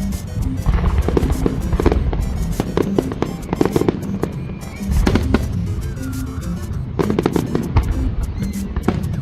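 Aerial fireworks bursting in a pyromusical display: many sharp bangs and crackles come in quick clusters over the show's accompanying music.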